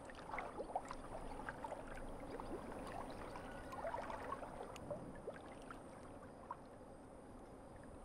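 Faint water sounds: gentle sloshing and gurgling with scattered small pops and drips, busier in the first half and quieter from about five seconds in.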